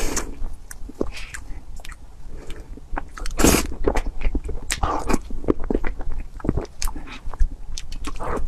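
Mouth sounds of a person eating soft cream cake from a spoon: wet smacking and chewing in a quick run of short clicks, with a few louder smacks.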